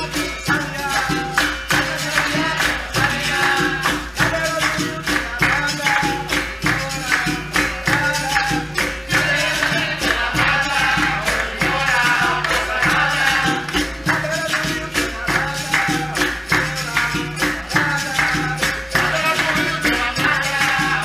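Live capoeira roda music: singing over a steady, driving rhythm of hand percussion and jingling.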